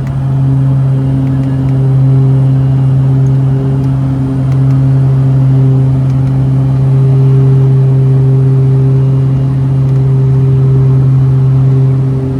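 Beechcraft King Air's twin Pratt & Whitney PT6A turboprops running steadily, giving a constant, loud low propeller drone with a few fainter overtones above it.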